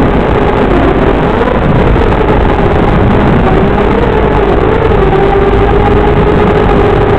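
Racing quadcopter's brushless motors and propellers whining steadily under a thick hiss, the pitch wavering slightly up and down as the throttle shifts.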